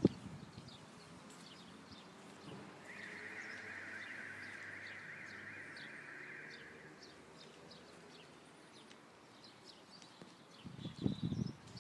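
Footsteps and handling knocks on a flat concrete roof: a few low thumps at the start and a louder cluster near the end. In the middle, a steady high buzz runs for about four seconds, and faint bird chirps come now and then.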